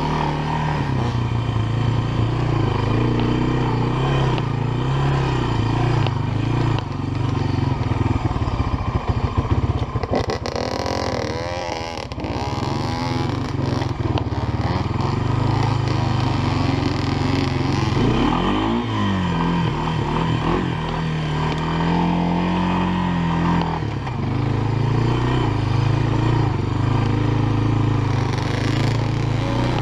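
Honda FourTrax ATV's single-cylinder four-stroke engine running under way on a rough trail, its pitch rising and falling with the throttle. Rattling and clatter from the machine over bumps about a third of the way in.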